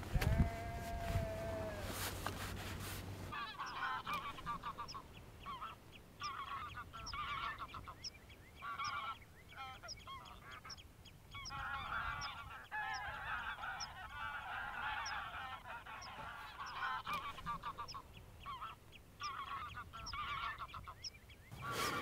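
A flock of geese honking and chattering in repeated bouts, with a faint short high peep repeating about once or twice a second. The first few seconds have wind rumble on the microphone and one drawn-out call before the sound changes abruptly.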